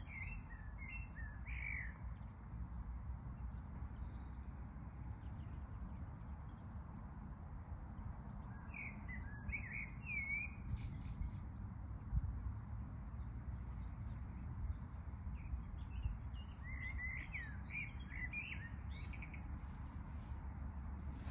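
A small songbird singing three short warbling phrases, several seconds apart, over a steady low rumble.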